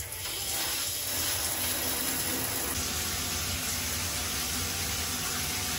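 A shower head spraying water, a steady even hiss of running water.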